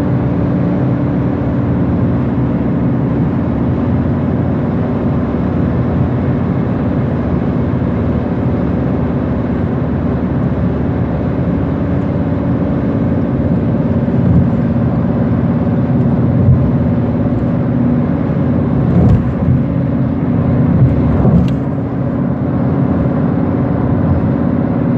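Car travelling at freeway speed, heard from inside: steady tyre and road noise with a low engine drone. A few brief bumps come in the second half.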